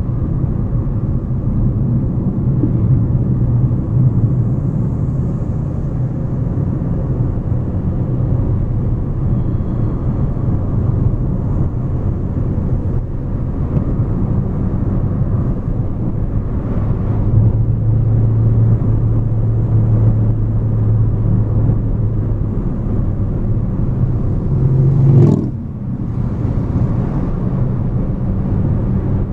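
Hyundai Elantra car driving, with steady engine and road noise. About 25 seconds in, the engine note rises briefly and then drops off suddenly.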